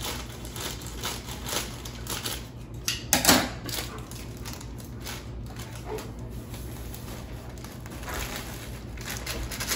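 Crinkling and rustling of a plastic pouch of cookie mix being cut open and handled, with scattered crisp clicks and one louder clatter about three seconds in.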